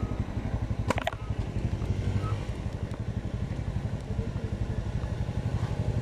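Small motorcycle engine running steadily at low speed, with a fast even pulse. There is one sharp click about a second in.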